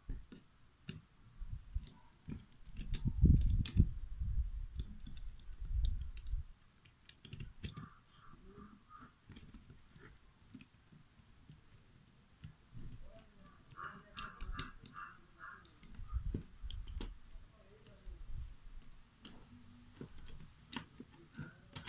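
Irregular clicks, taps and dull knocks of plastic and metal parts being handled: a cassette deck's tape mechanism and its row of plastic push-button keys being fitted together, with the heaviest bumps a few seconds in.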